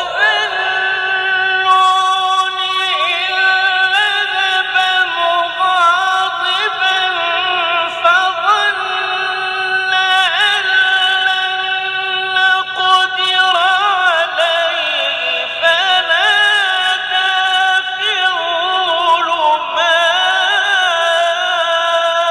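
A male Quran reciter chanting one long, unbroken melismatic phrase, the voice held and ornamented with quick pitch wavers, sinking lower about two-thirds of the way through and climbing again near the end.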